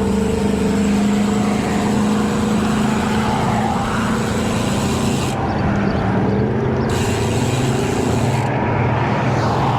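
Steady wind rush and tyre noise from riding a Cervelo Caledonia road bike on pavement, with a low hum that shifts lower about halfway through.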